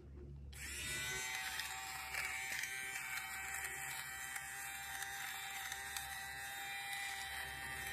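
Philips electric fabric shaver switched on about half a second in, its small motor whirring steadily as the blades shave pilling off a garment.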